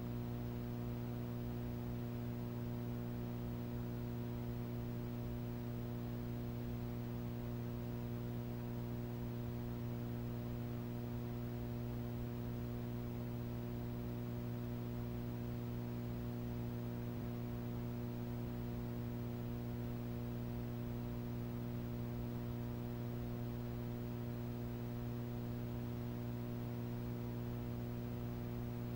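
Steady electrical mains hum, low and unchanging, with a faint hiss beneath it and no programme sound over it.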